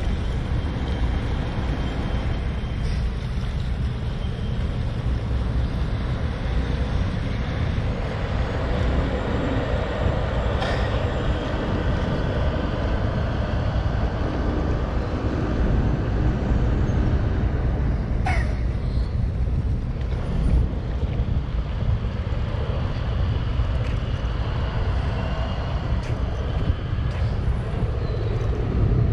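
Steady low rumble of road traffic heard outdoors, with a short falling squeal about two-thirds of the way through.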